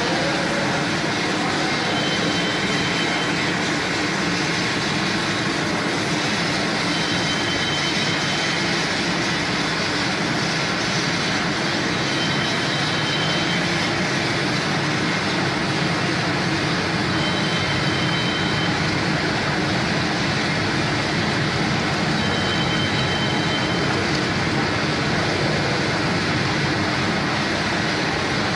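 Stainless-steel continuous onion frying machine running: a steady dense hiss with a low hum under it, and a faint short high tone that comes back about every five seconds.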